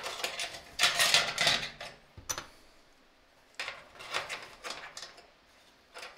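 Metal sink mounting clips sliding along the channel under a sink's rim, scraping and clicking in two spells of about a second each, with one sharp click between them.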